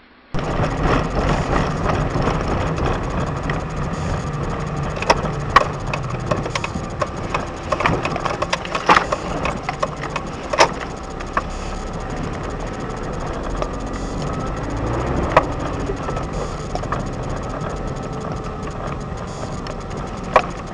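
A car driving on a winter road, heard from inside: steady road and engine noise with scattered sharp clicks and knocks.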